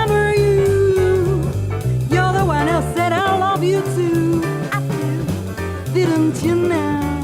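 Jazz singing: a woman's voice holds long notes that waver and slide in pitch, over a plucked-string accompaniment and a bass line moving in even steps.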